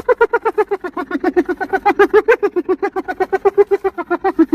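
An animal making a fast, even run of short pitched calls, about eight a second, with no break.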